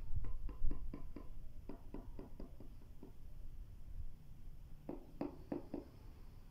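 A hand tapping on freshly laid ceramic floor tiles: a quick run of about a dozen light taps, then four more near the end.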